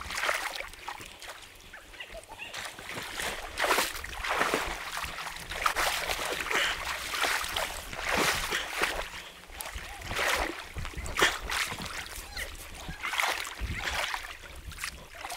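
Irregular splashing and sloshing of river water close by, a few uneven swishes each second.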